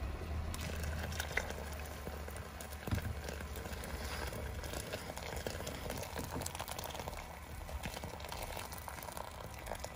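Hot water poured in a steady stream into a large stainless steel stockpot of chicken pieces, splashing and bubbling into the foaming broth, over a low steady hum.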